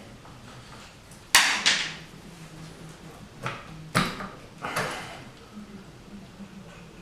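Metal hand tools and engine parts clanking while an engine is stripped down: about five sharp, ringing clanks in the first five seconds, over a faint low steady hum.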